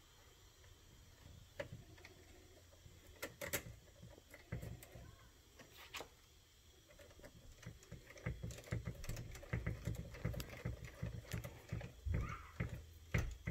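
Faint, scattered clicks and light knocks of small tools, screws and plastic parts being handled during RC truck axle and hub reassembly. The clicks come closer together in the second half.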